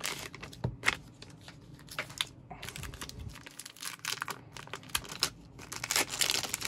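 Crinkling and tearing of a foil mylar card pack being opened, then a clear plastic sleeve of trading cards being handled: a run of short crackles and clicks, busiest near the end.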